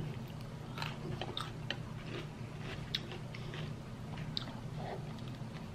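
Close-up mouth sounds of a person chewing food, with small irregular clicks scattered through it.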